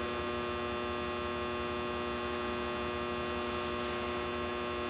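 Steady electrical hum: a constant buzz of several held tones that neither rises nor falls.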